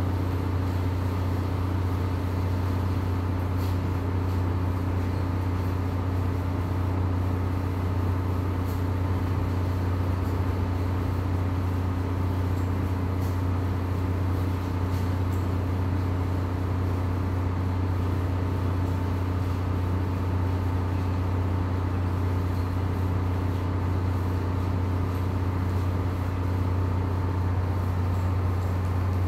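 A steady low hum from a running machine, unchanging in pitch and level, with a few faint clicks.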